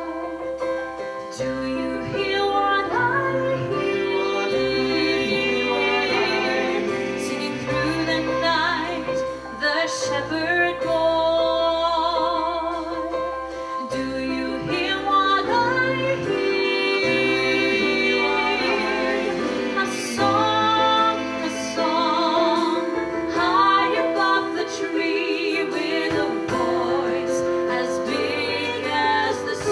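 Music: a woman singing with vibrato over instrumental accompaniment, with held bass notes underneath.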